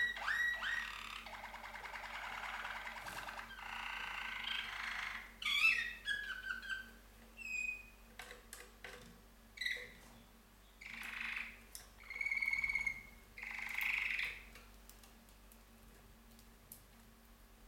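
Two caged canaries singing as a duet: long rolling trills that break into shorter separate phrases and pauses, stopping a few seconds before the end.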